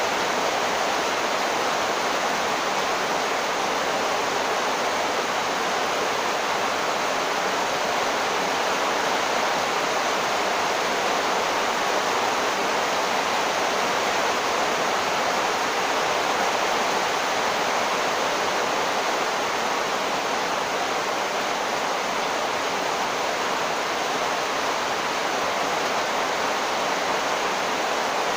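Heavy rain pouring down: a steady, even hiss.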